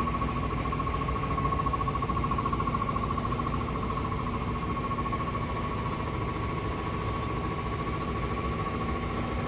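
Steady machine hum with a constant high whine and a lower drone, running without change.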